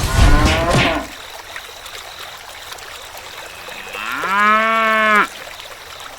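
Cow mooing twice: a short call in the first second, then a longer, steady moo about four seconds in that rises at its start and cuts off sharply.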